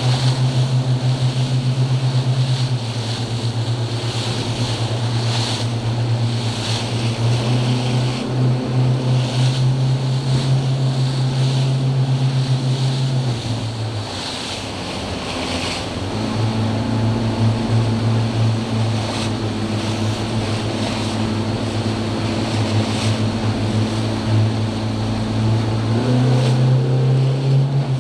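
Yamaha outboard motor driving a boat at speed, a steady drone whose revs drop about halfway through, climb again, and rise once more near the end. The hull slaps and hisses through the chop every second or two, with wind on the microphone.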